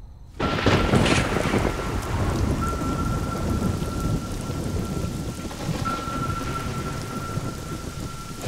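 A sudden clap of thunder about half a second in, then steady heavy rain, with a thin high tone held over it.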